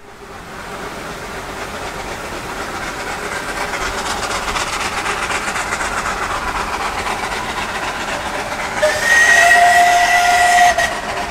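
Narrow-gauge steam locomotive working uphill, its exhaust chuffing growing steadily louder as it approaches. About nine seconds in it sounds its steam whistle, one steady two-note blast lasting about two seconds that cuts off sharply.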